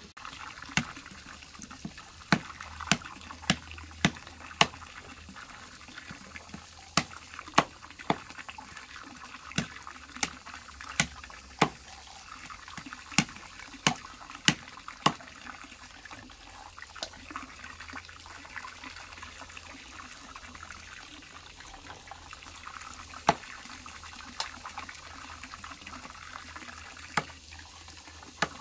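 Steady trickling water with irregular sharp clicks or knocks over it, many of them about half a second to a second apart. The knocks are most frequent in the first half and are the loudest sounds.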